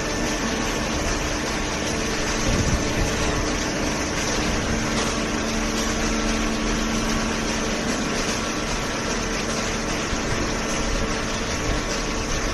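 Hydraulic power unit of a semi-automatic horizontal cardboard baler running steadily, a hum of several tones over a mechanical hiss, with a lower tone joining about five seconds in.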